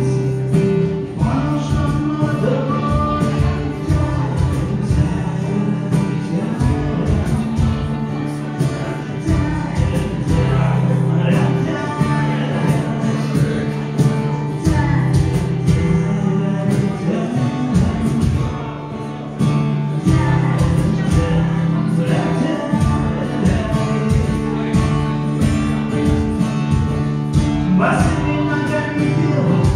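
Live music: singing over a strummed acoustic guitar with a steady rhythm, amplified through a small bar's PA.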